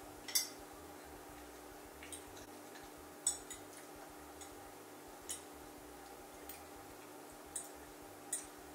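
A metal fork clicking against a white plate as food is picked up, about seven light clicks a second or two apart, over a faint steady hum.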